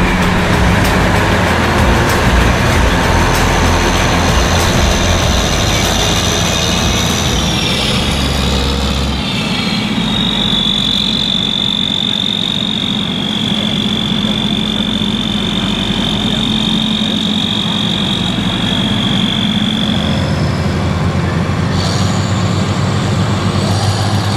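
John Deere 9520 four-wheel-drive tractor's diesel engine running as the tractor drives. A steady high-pitched whine sits over the engine from about ten seconds in until about twenty seconds.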